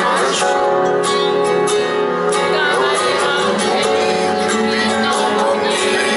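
Live pop song played at a concert, with guitar and a singing voice over a steady beat.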